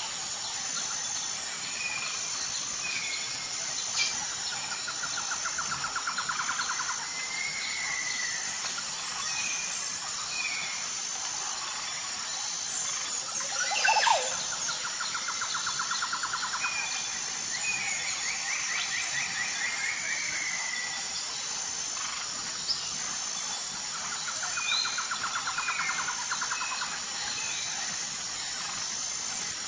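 Songbirds calling: short chirps and a fast rattling trill repeated three times, over a steady high insect chorus. About 14 seconds in comes a louder, sharper call that sweeps downward.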